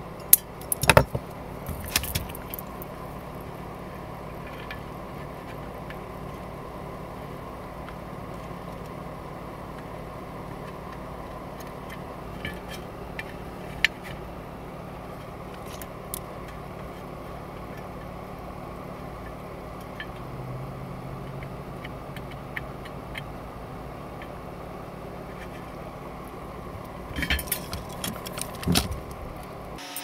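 Small metallic clicks and clinks of wire cutters and wires being handled on a metal panel while a small circuit board is wired up, in a cluster near the start, a few in the middle and another cluster near the end, over a steady low hum.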